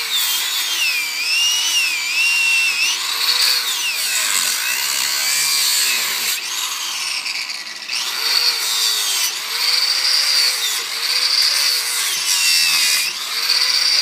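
Angle grinder cutting through a bicycle tire. The motor's high whine drops in pitch each time the disc bites and climbs back as it frees, several times over, with a steady grinding hiss throughout.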